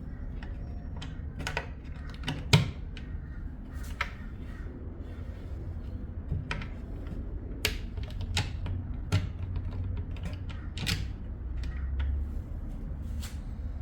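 Irregular clicks and light knocks of a newly fitted drawer lock and wooden desk drawer being worked and tested, with one sharper knock about two and a half seconds in.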